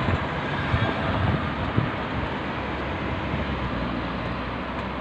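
Steady outdoor road-traffic noise, with low irregular gusts of wind buffeting the phone's microphone.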